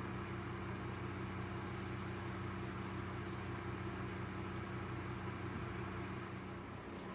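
Small electric pump of a stainless-steel dog water fountain running, a steady low hum under an even hiss of circulating water.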